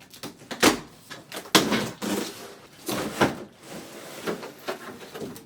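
A few sharp knocks and bumps of household handling, like a cupboard or door being opened and shut, with rustling between them.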